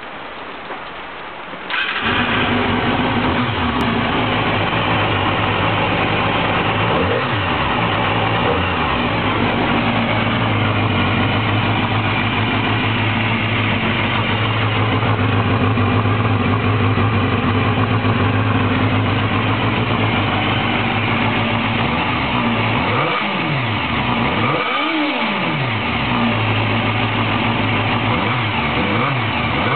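Honda CBR250R motorcycle engine with its stock exhaust silencer, starting up about two seconds in and then idling steadily.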